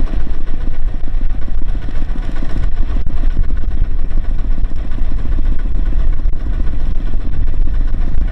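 Diesel engine of heavy machinery running loud and steady with a dense, rapid chugging.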